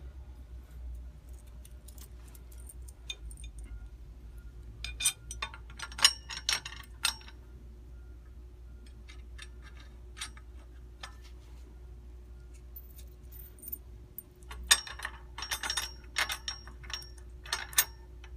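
Light metal clinks and clicks of bolts, washers and lock nuts being fitted to a flat-bar truss on a metal rack frame. The clicks come in two bunches, a few seconds in and again near the end.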